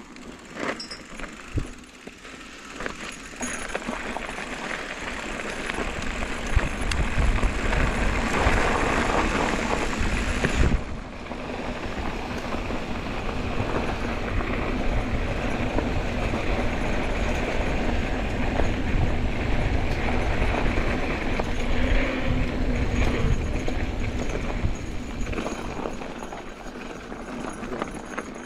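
Wind buffeting the camera microphone and tyre noise from a mountain bike rolling downhill, first on pavement and then on a gravel dirt track. The noise builds over the first few seconds, with a few clicks and knocks near the start, and breaks off sharply about eleven seconds in before carrying on.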